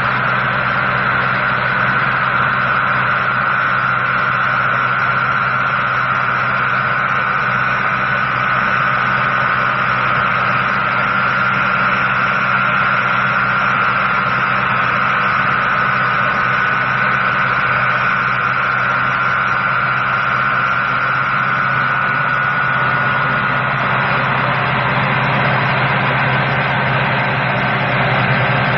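Remote-controlled robot demolition saw running steadily, a continuous machine drone with a high whine that fades out near the end.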